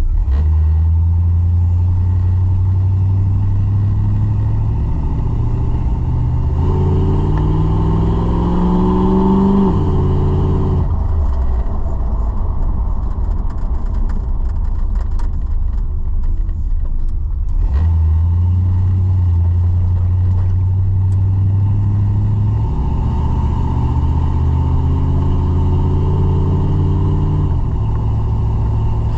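1981 Chevrolet C10 pickup's engine and exhaust while driving: a steady low drone that twice rises in pitch as the truck accelerates for a few seconds, then drops suddenly as the throttle comes off, with quieter coasting between.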